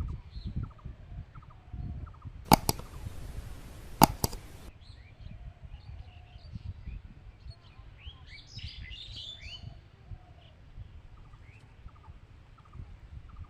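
Outdoor birds chirping with many short calls, busiest for a second or so past the middle. A few sharp clicks come between about two and four and a half seconds in.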